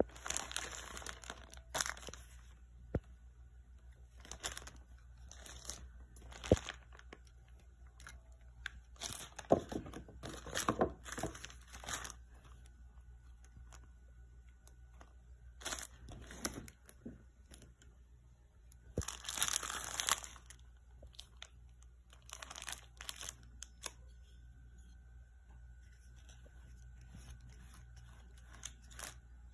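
Plastic bags and cellophane wrapping crinkling in irregular bursts as wrapped gift items are picked up and handled, with a few sharp light clicks.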